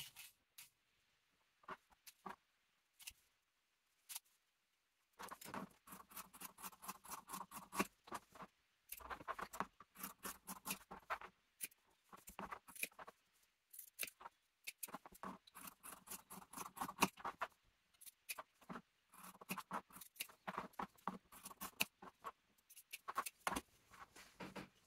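Fabric scissors cutting through layered cotton, quiet. A few separate snips at first, then long runs of quick snipping with short pauses between.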